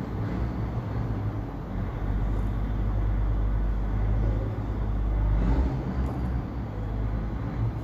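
Steady low background rumble with a noisy hiss over it, swelling a little in the middle.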